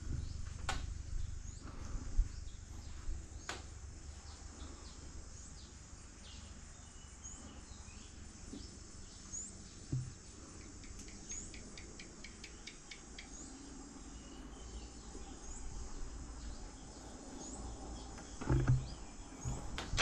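Quiet rural ambience: a short, high, rising chirp from a small creature repeats every second or two. A quick run of ticks comes about eleven seconds in, and there are a few soft knocks, with a faint low hum underneath.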